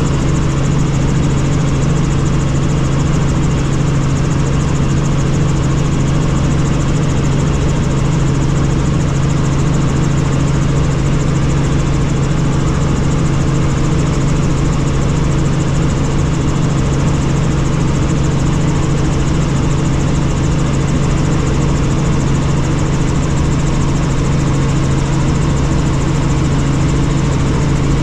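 Helicopter in flight: a steady, loud drone of engine and rotor noise with a strong low hum, unchanging throughout.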